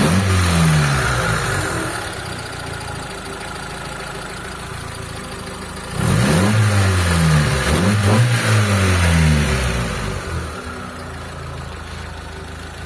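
Freshly tuned carbureted car engine blipped once right away, settling back to a smooth idle, then revved several times in quick succession about six seconds in before dropping back to idle. The tune-up, a cleaned intake port and distributor timing reset to standard, leaves the engine very quiet at idle and quick to respond to the throttle.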